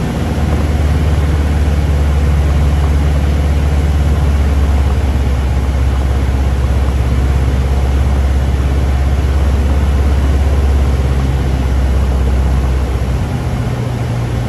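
Cessna 150's four-cylinder Continental O-200 engine and propeller droning steadily, heard inside the cabin in flight. Near the end the note shifts and the drone eases slightly.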